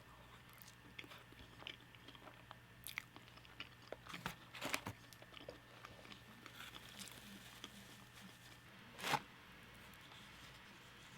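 Close-miked eating: scattered crunchy bites and chewing of fried chicken wings and fries, with a cluster of bites about four to five seconds in and one loudest crunch about nine seconds in.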